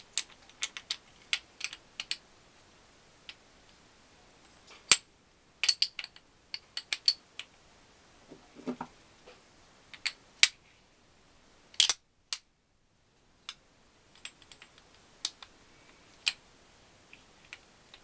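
Steel gearbox gears of an Adler MB250 motorcycle engine clinking and clicking as they are handled and slid onto their shafts. The clicks are scattered and uneven, loudest about five and twelve seconds in.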